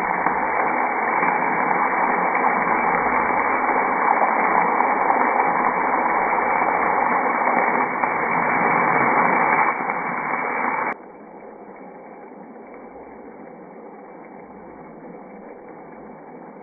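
A steady hiss from a pan of spiced gravy bubbling on the stove. About eleven seconds in it drops suddenly to a much quieter hiss.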